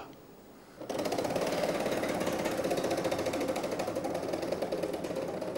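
Game-show prize wheel spinning, its pointer flapper clicking rapidly against the ring of metal pegs, starting about a second in.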